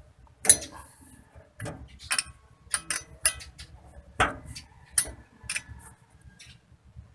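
Metal hand tools clicking and clinking against metal parts: about ten short, sharp, irregular strikes, the loudest about half a second in and about four seconds in.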